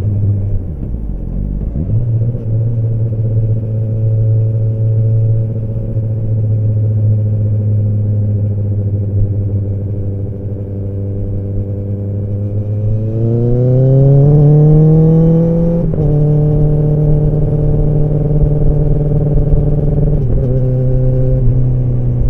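Kawasaki ZX-10R inline-four exhaust cruising at low revs, with a short dip about a second in. Further on, the revs climb for about three seconds under acceleration, drop sharply at an upshift, then settle again, with another brief dip near the end.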